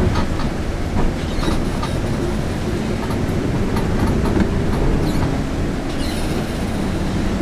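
Steady low rumble of a bus's engine and tyres on a wet road, heard from inside the driver's cab, with scattered light clicks throughout.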